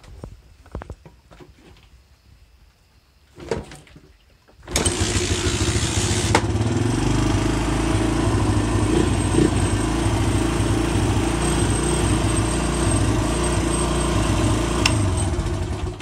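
Suzuki 230 Quadsport ATV's single-cylinder four-stroke engine catches about five seconds in, after some handling clatter. It runs steadily for about eleven seconds, then cuts off abruptly at the end as the newly installed lanyard kill switch is pulled, shorting the spark to ground.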